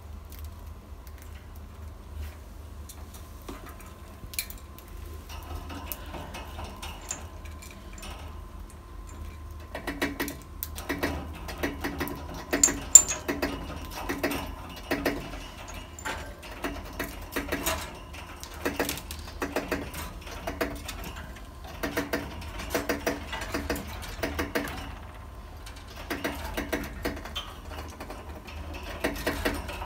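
Budgerigars pecking and tapping in their cage: a run of quick clicks and knocks, sparse at first and much busier and louder from about ten seconds in.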